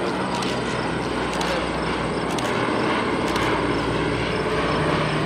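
B-17G Flying Fortress making a low pass, its four 1,200-horsepower Wright R-1820 Cyclone radial engines droning steadily.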